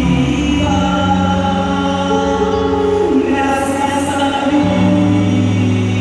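Large youth string orchestra and choir performing, holding sustained chords that shift to new notes every second or two.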